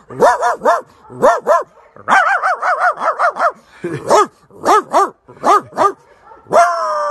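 A man imitating a dog: quick runs of high, yapping barks, several a second in short bursts, then a long held howl beginning near the end.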